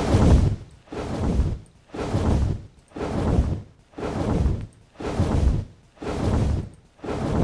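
Designed dragon wing-flap sound effect looping, its layered whooshes run through an OTT multiband compressor: about one flap a second, each a deep whoosh with a bright airy top.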